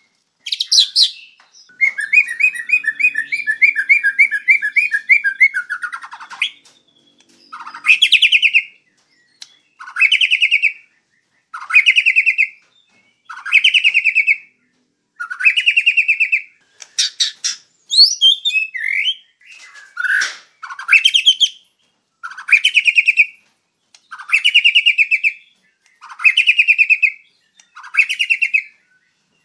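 White-rumped shama singing loudly. First comes a long, fast trill of rapidly repeated notes lasting about four seconds. Then one short phrase repeats about every two seconds, a brief upward note running straight into a quick trill, broken midway by a burst of varied, jumbled notes.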